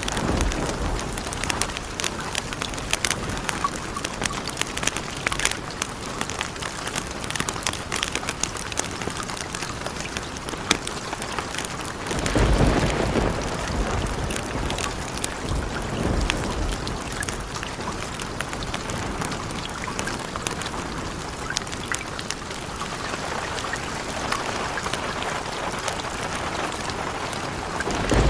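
Steady rain with scattered sharp drips, and low rumbles of thunder about twelve seconds in, more faintly a few seconds later, and again at the end.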